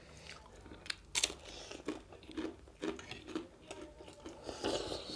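Close-up mouth sounds of a person chewing and crunching food, with sharp clicks about a second in, then regular chewing strokes and a short noisy burst near the end.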